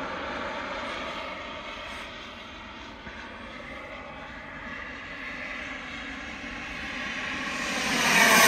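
Turbine of a CARF Rookie RC model jet in flight, a continuous engine whine that fades slightly a few seconds in, then grows much louder toward the end as the jet passes close by.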